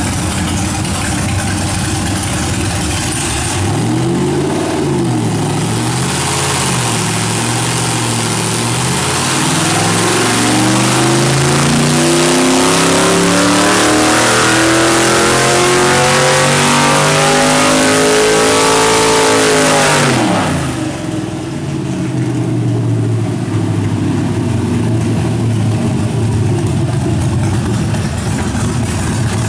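Stage 1 LQ9 6.0-litre LS V8 with a small cam, running on an engine dyno: it idles, revs up and back briefly about four seconds in, then climbs steadily in pitch for about fourteen seconds in a dyno pull under load, and at about twenty seconds the revs drop quickly back to idle.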